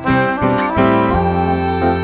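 Instrumental background music, a light tune carried by an accordion-like reed instrument over a steady bass line.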